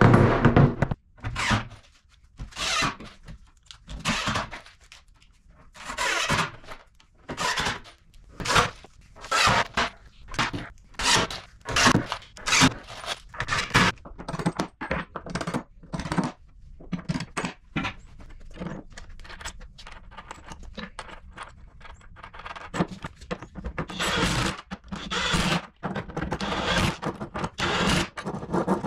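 Wooden thunks, knocks and scrapes as cabinet panels are fitted and tapped into place, coming in short irregular bursts. Near the end come longer bursts as a cordless drill drives screws.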